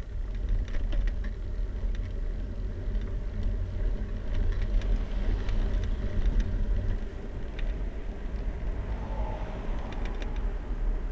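A bicycle being ridden along a road in traffic: a steady low wind rumble and road noise on the bike-mounted camera's microphone, with light rattling clicks and cars passing close by.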